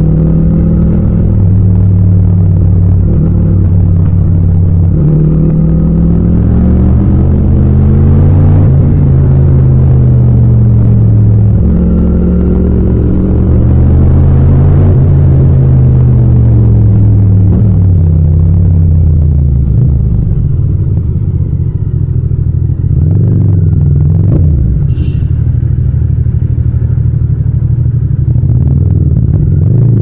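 Yamaha MT-07's parallel-twin engine heard from the rider's seat, revving up and easing off several times with its pitch rising and falling. It drops lower and quieter about two-thirds of the way through, then runs on steadily.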